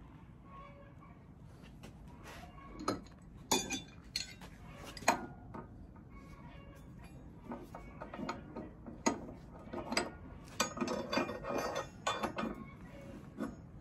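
Steel hand wrenches clinking and clicking against a large nut and bolt on a steel bracket as the nut is turned. The strikes are irregular, with a denser run of quick clicks from about ten to twelve and a half seconds in.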